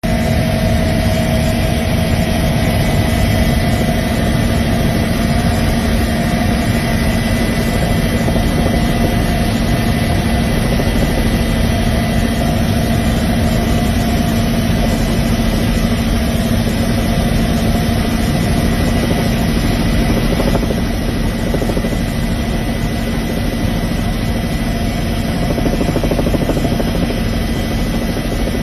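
Helicopter engine and rotor noise heard from inside the cabin: a loud, steady drone with a constant hum running through it, dipping slightly about two-thirds of the way through.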